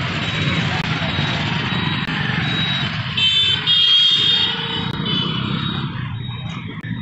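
Road traffic, mostly motorcycles and cars passing with a steady engine and tyre rumble. About three seconds in, a high-pitched vehicle horn beeps a few times and is the loudest sound.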